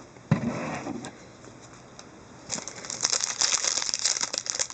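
A sharp click, then handling of a trading-card pack: from about halfway through, the foil wrapper crinkles steadily as it is worked open.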